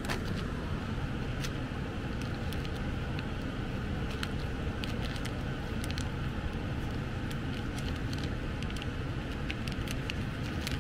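A steady low background rumble, with scattered small clicks and crinkles of a small plastic zip bag of metering pistons being handled.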